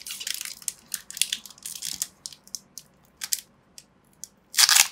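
Foil wrapper of a Pokémon trading-card booster pack crinkling as it is picked and pulled open by hand, in short irregular crackles, with a louder crackle near the end.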